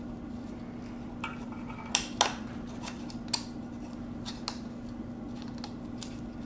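Scattered light metal clicks and taps as a piston ring compressor band is handled around a piston with a hand tool, over a steady low hum.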